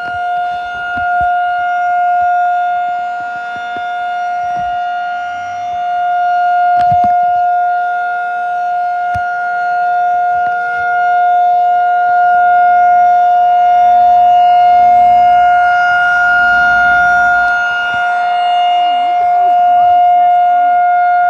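Federal Signal 2001-SRN rotating tornado siren sounding a steady single-pitched alert tone, swelling louder and softer every few seconds as its head turns.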